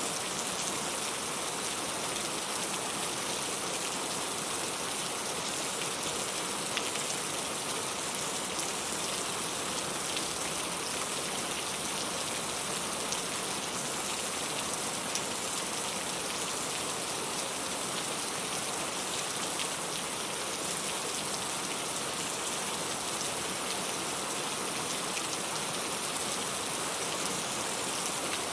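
Steady rain falling, with fine drops pattering on a surface in an even hiss.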